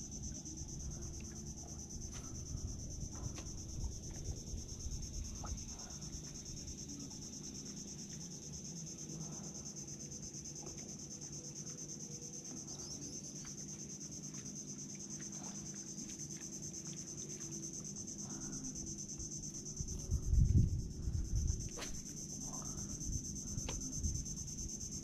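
A steady, high-pitched drone of insects, crickets or the like, calling from the mangroves, over low handling rumble, with a louder low bump about twenty seconds in.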